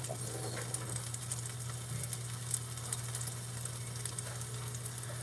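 Sausages and pancake batter frying on a griddle: a steady sizzle with fine crackles. A low steady hum sits underneath.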